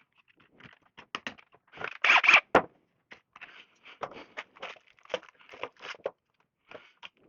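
Irregular scraping and crackling handling noises with sharp clicks, loudest about two seconds in.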